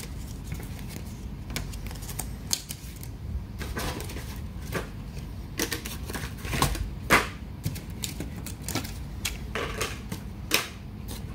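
Irregular key clicks on a Lenovo IdeaPad 330 laptop keyboard, about a dozen sharp presses at uneven intervals, the laptop just switched back on after a RAM and SSD upgrade.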